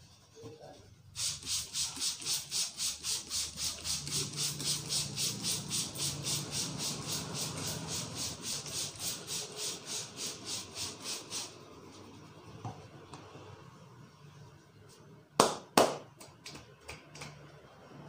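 Brisk rhythmic rubbing of hands over hair and scalp in a head massage, about four or five hissing strokes a second for roughly ten seconds. Near the end come two sharp, loud snaps about half a second apart.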